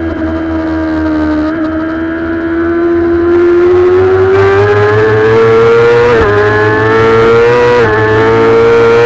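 Kawasaki ZX-6R's inline-four engine at racing speed, heard close up from the bike itself, revs climbing steadily with two brief dips in pitch about six and eight seconds in.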